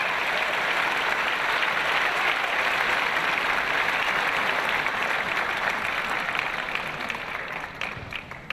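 Audience applauding to welcome a singer onto the stage. The steady applause thins out and fades over the last two seconds, ending in a few scattered claps.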